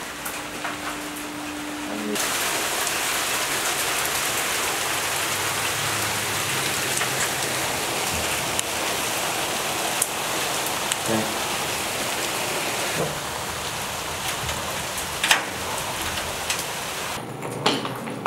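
Steady rain falling, an even hiss, with a few light knocks over it.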